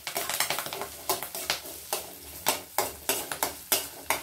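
A steel spoon scrapes and clinks against a stainless steel kadai as sliced onions, curry leaves and dried red chillies are stirred in hot oil. The strokes come in a quick, irregular series of about three a second, over a faint sizzle.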